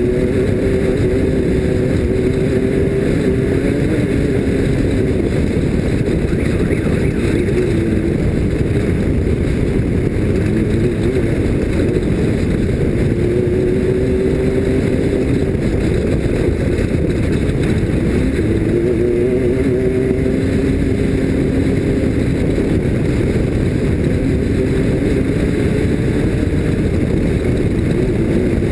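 Off-road race vehicle's engine running hard under a steady, loud rumble, its note rising and falling every few seconds as the throttle changes.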